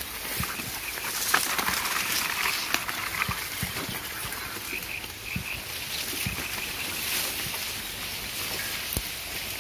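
Reed stalks and leaves rustling and scraping against a bicycle as it moves through a dense reed bed, with scattered light knocks and clicks from the bike and stems.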